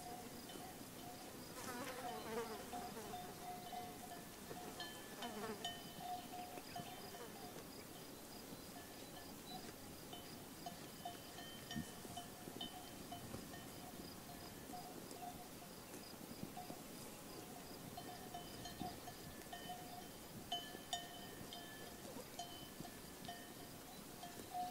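Grazing sheep flock: a sheep bleats about two seconds in and again around five seconds, over a steady, faintly pulsing high hum with light tinkling and small clicks.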